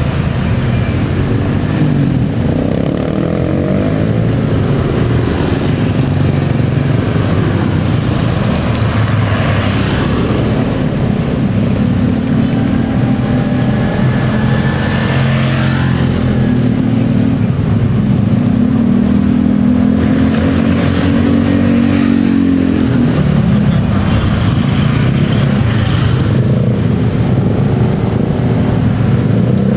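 Road traffic: car, motorcycle and truck engines running steadily as vehicles move past, with no pause in the noise.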